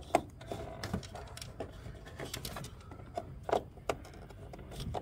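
Plastic automotive wiring connector being handled and plugged into a light harness: a scatter of irregular small clicks and taps, louder ones just after the start and about three and a half seconds in.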